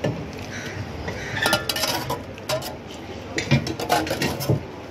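Steel ladle and spoon clinking against steel pots and containers while dal and chutney are served onto a paper plate: a cluster of sharp clinks about a second and a half in, and another run of them near the end.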